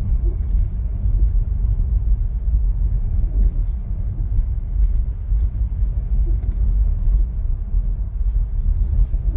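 Steady low rumble of tyres rolling on a snow-packed road, heard inside a 2022 Tesla Model 3, an electric car with no engine note, with faint scattered ticks over it.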